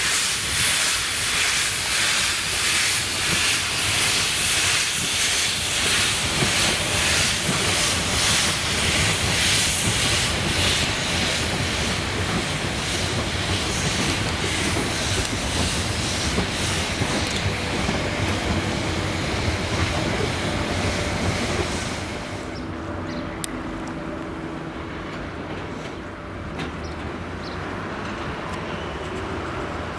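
Harz narrow-gauge steam locomotive 99 7239-9, a 2-10-2 tank engine, pulling a train away, with steam hissing and rhythmic exhaust chuffs, then the carriages clattering past over the rails. About two-thirds of the way in the sound drops suddenly to a quieter, duller background with a few scattered clanks.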